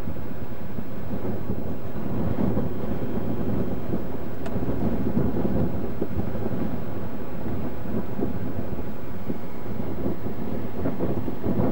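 Wind buffeting the camcorder microphone: a steady, dense low noise with no letup.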